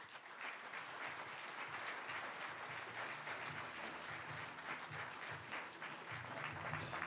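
Audience applauding steadily, starting right after a speaker is introduced.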